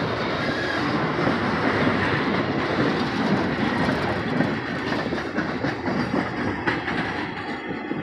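Freight train of coal hoppers and gondolas rolling past on newly laid track: a steady rumble and rattle of wheels and car bodies, with one sharper clank about two-thirds of the way through. The uploader says the new rails give no clickety-clack.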